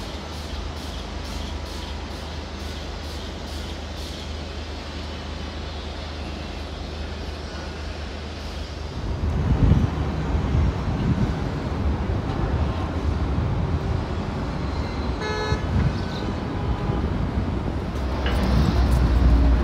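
City street traffic noise: a steady low rumble of vehicles that grows louder and rougher about halfway through, with one short vehicle horn toot about three-quarters of the way in.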